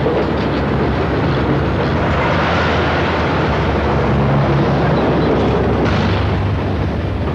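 Loud, steady vehicle noise with a low hum, swelling in at the start and holding throughout.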